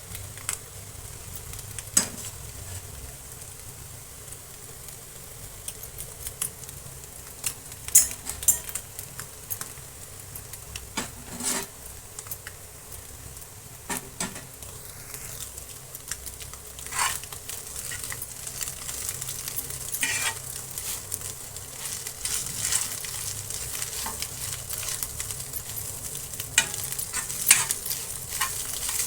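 Ingredients sizzling in a pan, with a steady hiss and occasional sharp clicks of a spoon stirring against the pan.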